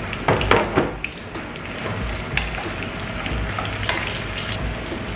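Sliced onions sizzling as they fry in hot olive oil in a frying pan. A few sharp knocks come about half a second in, with scattered lighter clicks later.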